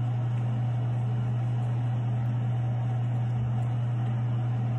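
A steady low hum with a faint even hiss behind it, unchanging throughout.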